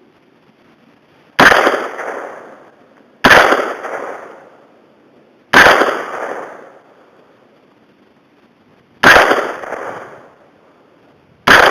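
Smith & Wesson M&P-15 AR-15 rifle fired five times in slow, uneven succession, each shot sharp and loud with an echo dying away over about a second.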